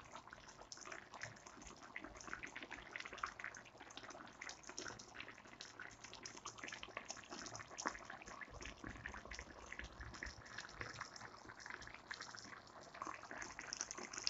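Chicken curry sauce simmering in a wok, with bubbles popping in a faint, irregular patter.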